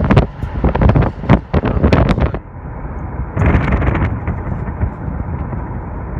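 A vehicle's steady low road rumble with wind buffeting the microphone. A quick run of sharp knocks and clatters fills the first two seconds or so, and a brief hissing gust comes a little after three seconds.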